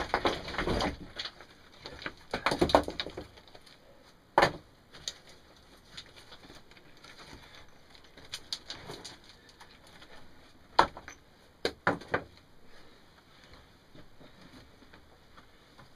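Loose rocks and soil being scraped and shifted by gloved hands, with scraping in the first few seconds and a few sharp knocks of stone on stone about four seconds in and again around eleven to twelve seconds.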